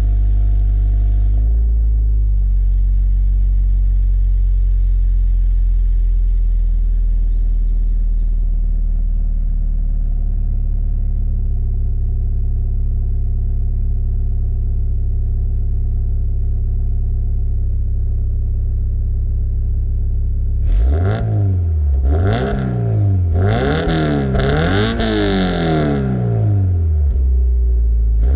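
Toyota GT86's 2.0-litre boxer four through a Milltek non-resonated catback exhaust, idling steadily for about twenty seconds, then revved four or five times in quick succession, each rev rising and falling sharply.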